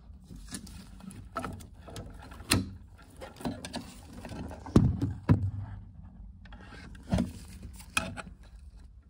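Irregular clicks and knocks of a screwdriver and plastic parts inside an open boiler as the clip holding its split automatic air vent is worked free. The loudest pair of knocks comes about five seconds in.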